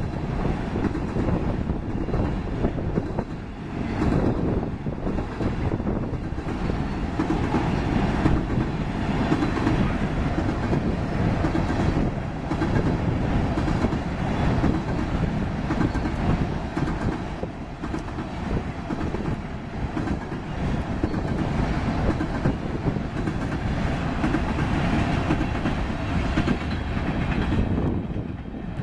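Freight train tank cars rolling past: a steady rumble of steel wheels on the rails.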